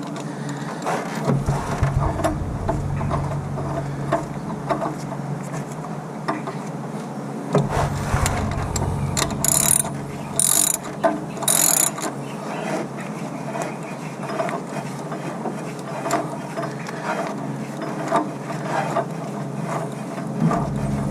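Hand socket ratchet clicking in repeated strokes as a bolt is worked on the engine's front end, with small metal tool clinks. Three short, sharper bursts come about halfway through.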